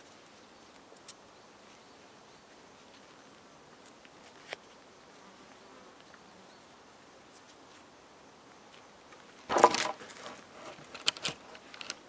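Hands working paracord lashing on birch poles: a quiet stretch with a couple of faint clicks, then a loud rustling burst about nine and a half seconds in, followed by several sharp clicks.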